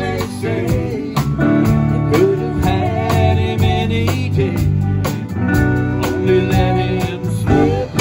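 Live country band playing an instrumental break on electric and acoustic guitars, pedal steel guitar and drum kit, with sliding, bending lead notes over a steady beat.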